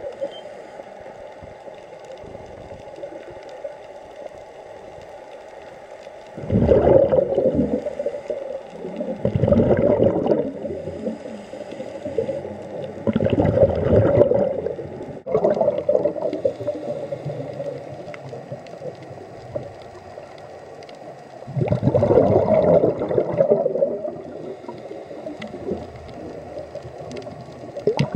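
Scuba diver's exhaled breath bubbling out of the regulator in four loud bursts of a second or two each, with long quieter gaps, over steady underwater background noise.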